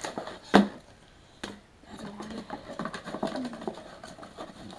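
Plastic product packaging and paper leaflets being handled: rustling and small clicks, with one sharp click about half a second in and a softer one about a second later.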